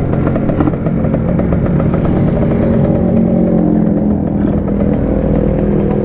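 Kawasaki Ninja two-stroke motorcycle engine running at low revs, its pitch easing down a little as the bike rolls to a stop at the curb, then idling steadily.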